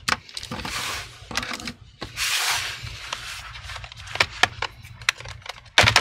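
Handling of an Asus ROG GA503Q laptop: two brief scraping rushes as it is slid and turned on the table, then a run of sharp clicks and snaps, the loudest near the end, as the bottom cover is pried loose from its clips.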